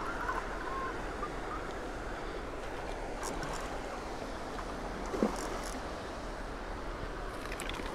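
Steady rush of water pouring over a low-head dam, with some wind on the microphone. About five seconds in there is a brief splash as a hooked fish thrashes at the surface near the bank.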